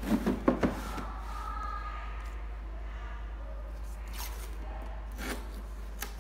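Hard plastic Hitachi tool case handled and set down on cardboard: a few quick knocks and rattles in the first second, then quieter handling with a couple of light knocks later.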